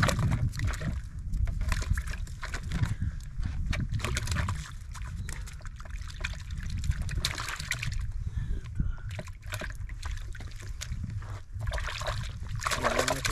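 Water sloshing and trickling, over a steady low rumble, with scattered clicks and rustles of a sabiki rig and catch being handled.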